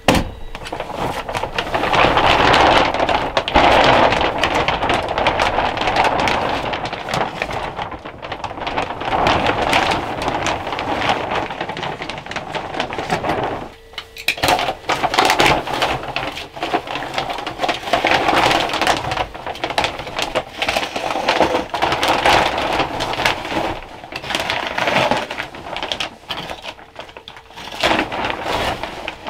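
Clear plastic vapour-barrier sheeting rustling and crinkling as it is handled, pulled and pressed against mineral-wool insulation.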